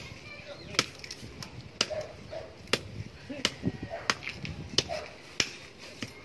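Machete chopping at the woody base of a cassava plant: about nine sharp strikes, roughly one every three quarters of a second.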